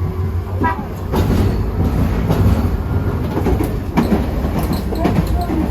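Hiroden 3950-series tram running, a steady low rumble with scattered knocks from its wheels on the track.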